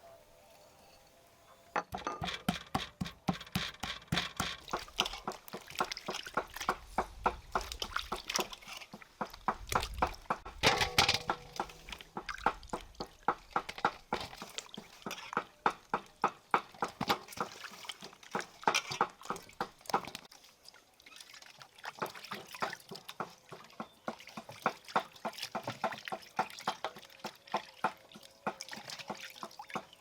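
Wet, liquid handling sounds: a quick run of small splashes and clicks, several a second, starting about two seconds in and pausing briefly around two-thirds of the way through.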